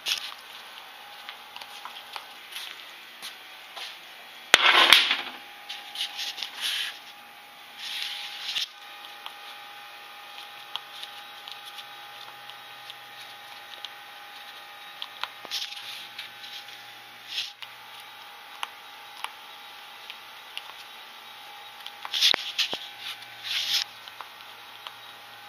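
Handling noise from a handheld camera: scattered clicks and several loud rubbing bursts, the loudest about five seconds in and another cluster near the end, over a faint steady hum.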